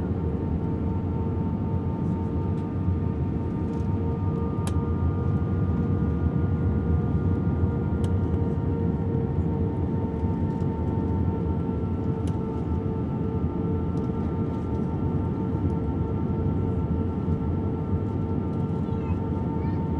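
Steady jet airliner cabin noise aboard an Airbus A320: an even engine and airflow rumble with several steady whining tones that drift slightly lower in pitch.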